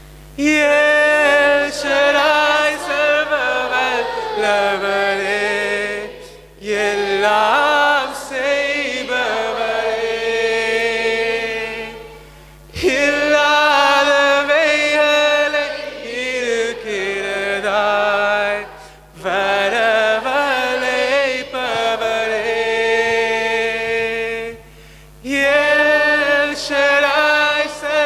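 Worship song sung in long held phrases, with a short break about every six seconds.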